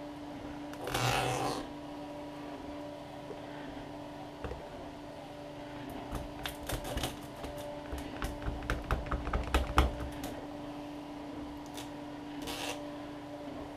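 Sharp plastic clicks and cracks coming thick and fast and growing louder, as the plastic casing of a MacBook battery pack is worked apart by hand. A brief scraping rustle comes about a second in and another near the end, over a faint steady hum.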